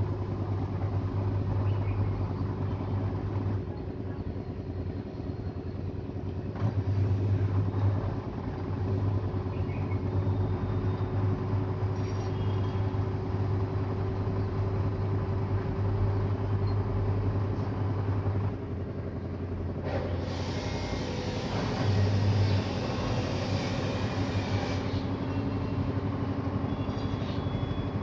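Washing machine running its spin cycle while standing on anti-vibration pads: a steady drum and motor hum, with a tone that rises slowly in pitch through the middle.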